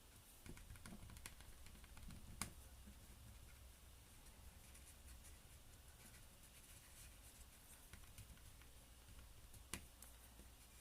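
Near silence, with faint taps and scratches of a paintbrush working acrylic paint on canvas and two sharper clicks, one about two and a half seconds in and one near the end.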